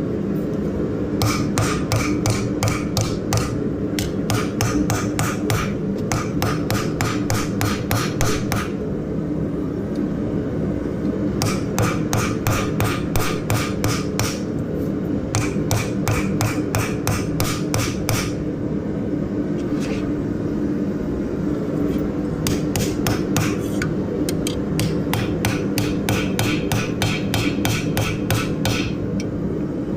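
Forging hammer striking steel while a crowbar tip is shaped, in runs of quick ringing blows about four a second with short pauses between runs, over a steady low hum.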